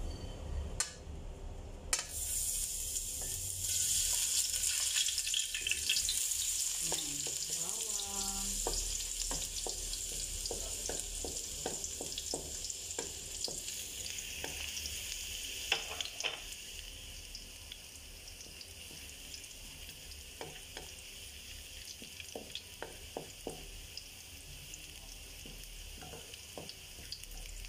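Minced garlic dropped into hot oil in a metal wok about two seconds in, starting a hissing sizzle as it sautés, with a wooden spatula stirring and tapping against the pan. The sizzle eases off in the second half.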